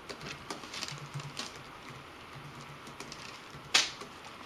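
Packaging being handled by hand: scattered light clicks and taps, with one sharper snap near the end.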